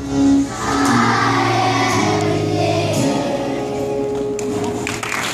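Children's choir singing with musical accompaniment, finishing the song; the accompaniment stops about three seconds in and clapping and cheering start near the end.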